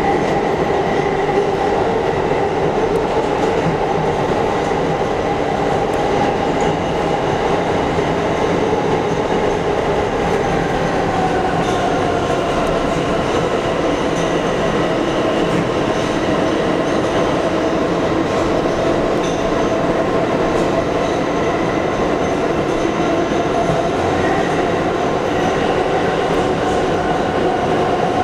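R160 subway train running at speed through a tunnel, heard from inside the lead car: a loud, steady rumble of wheels on rail with a whine that drops a little in pitch about ten seconds in and then holds.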